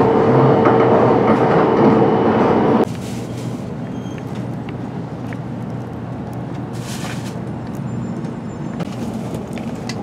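Cabin noise of a 700 series Shinkansen car under way: a loud steady rumble with a held hum that cuts off suddenly about three seconds in. A quieter steady rumble follows, with a few brief soft rustles.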